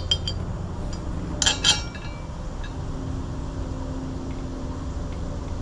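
Small metal bolts clinking together as they are handled: a few light taps at the start, then two sharp ringing clinks about a second and a half in. A steady low hum runs underneath.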